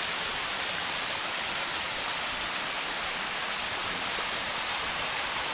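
Small waterfall spilling down a steep rock face into a river: a steady rush of falling and splashing water.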